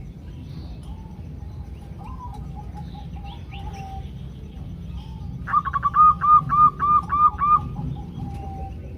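Female zebra doves (perkutut) calling: soft repeated cooing notes, then about halfway a loud, quick run of about eight short coos. A steady low rumble lies underneath.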